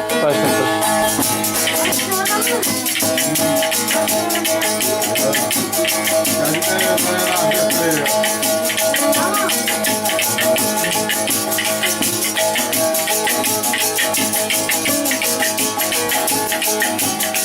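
Instrumental opening of a Turkish folk song: plucked strings over steady held tones, with a fast, even ticking percussion beat.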